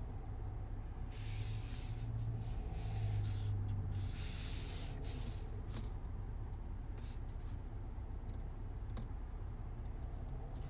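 Land Rover Defender 90's 3.0-litre straight-six idling with a low, steady drone. The drone grows a little stronger for a few seconds, and hissy noise comes up briefly twice.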